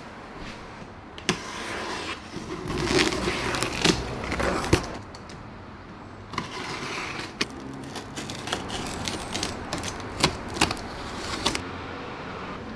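A cardboard bike box being handled: scraping and rustling against the cardboard, with a string of sharp knocks and clicks that stop shortly before the end.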